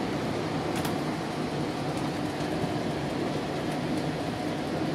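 Steady rumble and rushing ride noise inside a moving GO Transit commuter train coach, with a few faint ticks, the first about a second in.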